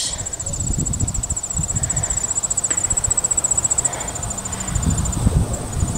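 Insects trilling steadily at a high pitch in rapid pulses, pausing briefly near the end, over the low, gusting rumble of wind buffeting the microphone.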